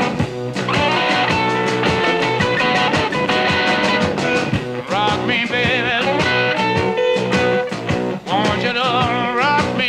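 Electric blues recording: raw, distorted electric guitar over a steady drum beat, with wavering slide-guitar lines about halfway through and again near the end.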